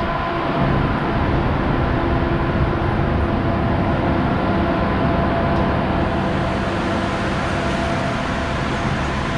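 Steady loud rumble and drone of trains standing at a station platform, with a few constant hum tones running through it.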